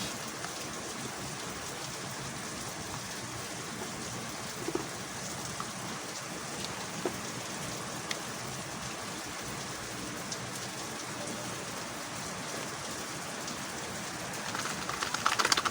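Steady rain falling, an even hiss throughout, with a few faint ticks and a brief burst of rustling and clicks near the end.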